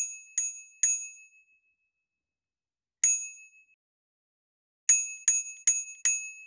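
Bright bell-like dings, each struck sharply and fading fast: three in quick succession, a single one about three seconds in, then four more in quick succession near the end.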